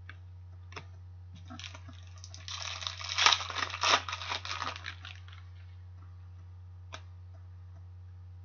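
Trading cards being handled at a table, card stock sliding and rustling against itself. The rustling starts about a second and a half in, is loudest in the middle, and dies away after about five seconds, with a couple of light clicks before and after.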